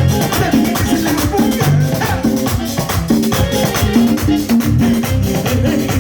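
A merengue band playing, with a bass line under pitched instrument notes and a fast, even rhythm of rattling percussion.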